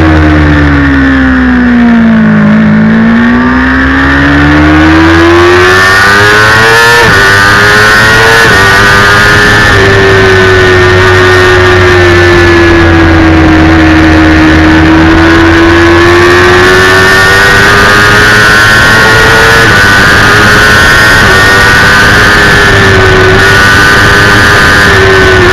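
Onboard sound of a 2009 Kawasaki ZX-6R's inline-four engine racing at high revs: the pitch falls as the bike slows into a corner, climbs again on the exit, drops sharply at a gear change about seven seconds in, then holds high with slow swells. A steady hiss runs underneath.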